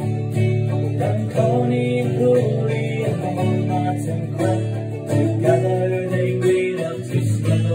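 An acoustic guitar strummed and a banjo picked together, playing an Irish folk tune.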